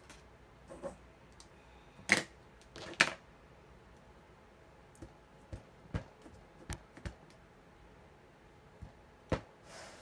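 Clear acrylic stamp block knocking against an ink pad and craft mat as a stamp is inked and handled: scattered sharp taps, the two loudest about two and three seconds in, with a few lighter ones later.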